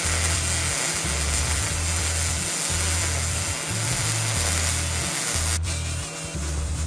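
MIG welder arc crackling and hissing as weld beads are run on steel tubing, with 75/25 argon-CO2 shielding gas. Background music with a steady bass beat plays over it.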